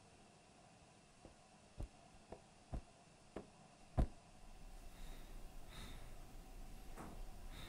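Footsteps going down a staircase, six soft steps about half a second apart, the last one about four seconds in the loudest. Then a low steady hum and a couple of soft breaths.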